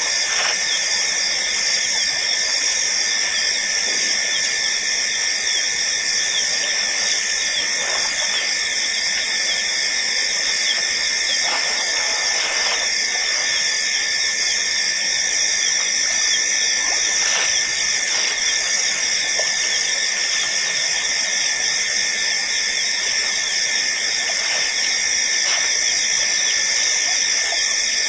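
Dense, steady chorus of night insects, a high-pitched shimmering trill with no break.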